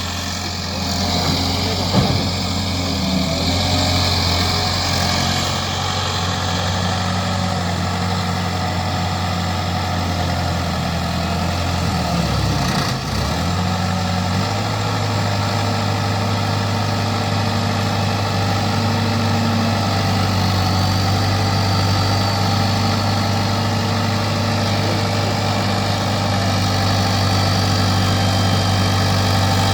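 Heavy diesel machinery engine running steadily, with a short dip in engine pitch about twelve to thirteen seconds in before it settles back.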